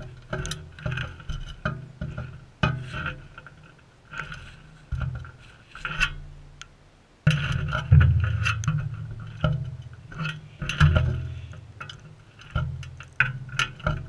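Background music: plucked guitar over a bass line, each note struck and dying away.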